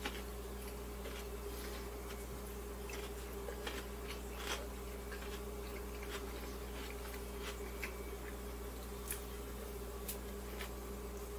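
Quiet eating of a hand-held wrap: faint, scattered clicks and small squishy sounds as it is held and bitten, over a steady low electrical hum.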